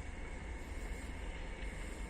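Rail vehicle running along the track: a steady low rumble of wheels and running gear with a faint high tone held throughout.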